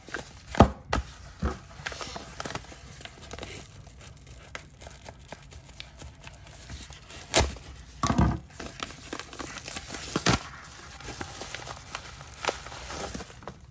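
A yellow padded paper mailer being slit open with a knife and handled: paper rustling and crinkling, broken by a few sharp clicks and knocks.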